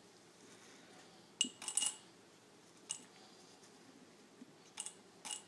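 Small lead air rifle pellets dropped by hand into a glass jar of pellets, clinking against the glass and each other: a few separate clinks and short rattles, spaced a second or more apart.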